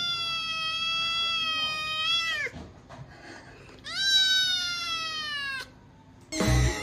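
Kitten meowing: one long, drawn-out meow that falls in pitch at its end, then after a short pause a second long meow that also falls away. Near the end a loud, different sound cuts in.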